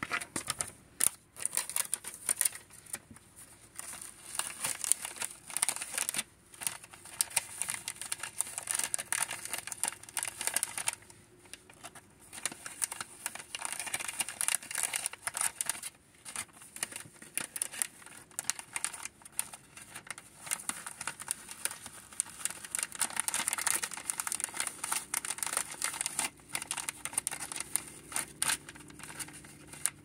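Clear plastic bag crinkling and crackling as it is handled and doll clothes are slid into it, in quick irregular rustles with a few short pauses.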